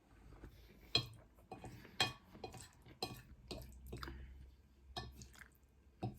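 Cutlery clinking against a plate or bowl, with a handful of sharp clinks spaced about a second apart.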